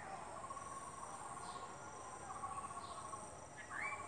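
Crickets and other insects chirping: steady high trills with pulsed chirping underneath, and a brief higher call near the end.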